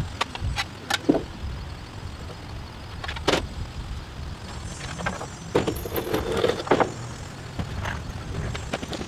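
Irregular knocks and clatters from building work on a wooden deck, over a steady low rumble.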